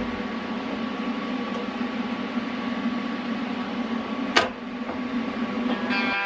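TIG welding arc on steel, a steady electric buzz, with one sharp click about four and a half seconds in.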